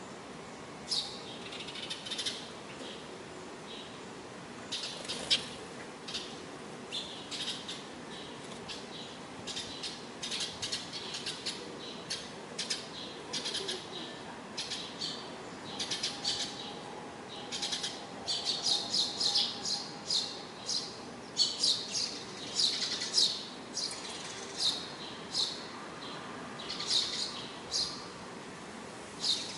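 Eurasian tree sparrows chirping, many short, sharp calls, scattered at first and coming thick and overlapping in the second half.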